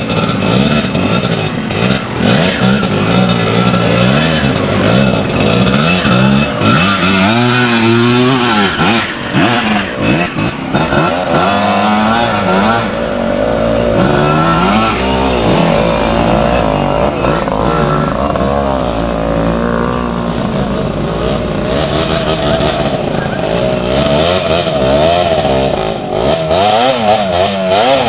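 Dirt bike engines revving as the bikes ride through a shallow rocky stream; the pitch rises and falls repeatedly as the riders work the throttle over the rocks.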